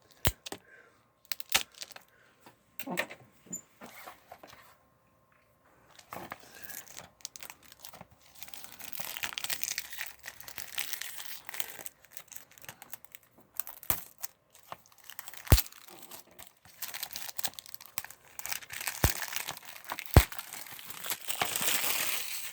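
Plastic shrink-wrap being torn and peeled off a DVD case, crinkling in stretches, with sharp clicks and taps as the plastic case is handled.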